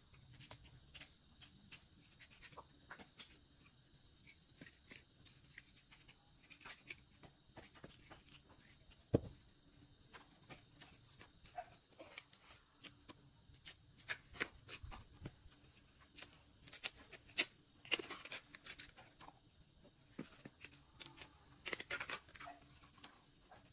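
Insects shrilling steadily on one high pitch, with scattered sharp clicks and knocks, the loudest about nine seconds in.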